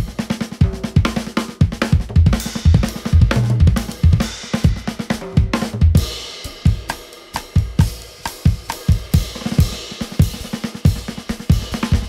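Live drum kit playing largely on its own: busy snare, bass drum, hi-hat and cymbal strokes, thinning out briefly around the middle before building again.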